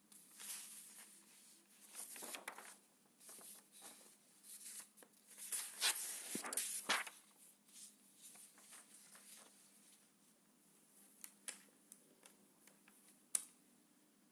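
Intermittent rustling and handling noise close to the microphone, loudest about six to seven seconds in, then a few sharp clicks near the end, over a faint steady hum.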